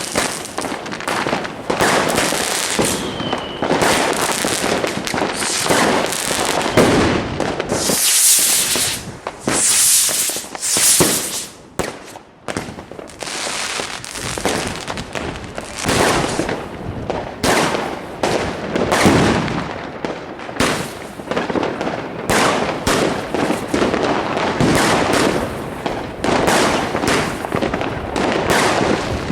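Fireworks going off in a dense run of bangs and crackling, with bursts of high hissing about eight to eleven seconds in and a short lull near the middle.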